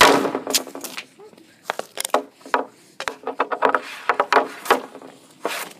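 Ice hockey shot off a plastic shooting pad: the Easton RS65 stick blade strikes the puck with a sharp crack, followed by a run of clicks and taps of stick blade and puck on the pad.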